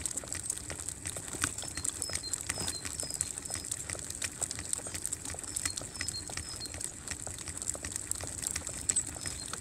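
A small bird chirping in two short series of high, falling notes, over a constant faint crackle of scattered clicks and a steady high hiss.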